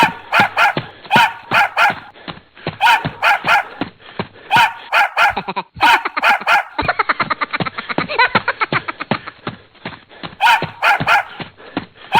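A dog barking over and over in short, sharp barks, mostly in quick clusters of two or three. From about seven to ten seconds in, the barks run together into a faster, denser string of yaps.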